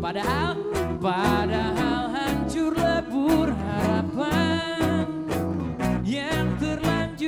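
Live pop band performance: a male lead voice singing over strummed acoustic guitars, with a steady beat.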